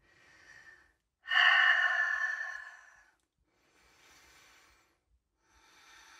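A woman breathing deeply: a soft inhale, then a loud exhale of about two seconds, followed by two quieter breaths.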